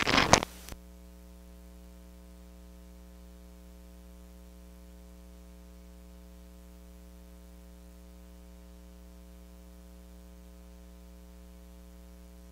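Steady electrical hum with a faint hiss, made of several fixed low tones. The last of a spoken phrase fades in the first second.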